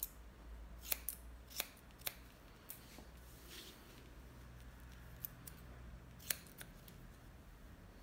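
Hairdressing scissors snipping hair: about ten short, sharp snips at uneven spacing, the loudest about a second in and again just past six seconds.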